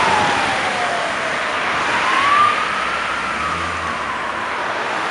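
Wail siren of a responding fire service vehicle, rising and falling slowly about once every four to five seconds and growing fainter, over the noise of passing car traffic.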